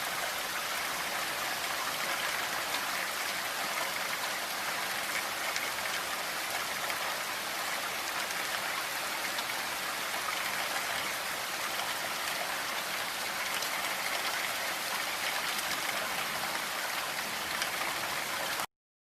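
Steady rain with a dense patter of fine drops on a surface, cutting off suddenly near the end.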